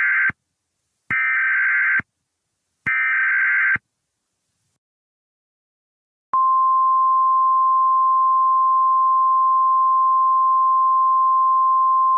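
Emergency Alert System SAME header: three warbling digital data bursts, about a second each with short gaps between them. After a pause of about two and a half seconds, a loud, steady single-pitch attention tone begins about six seconds in, like the NOAA Weather Radio 1050 Hz tone.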